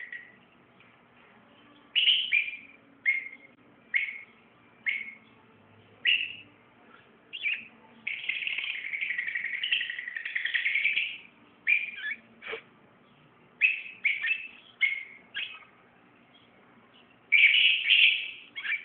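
Eye-ring lovebirds calling: shrill chirps roughly once a second, with about three seconds of continuous chattering in the middle and a loud cluster of calls near the end.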